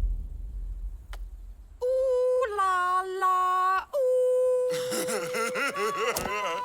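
Cartoon character's wailing vocalisation: long, steady, high held notes starting about two seconds in, briefly breaking and then wavering in pitch, after a low rumble fades out.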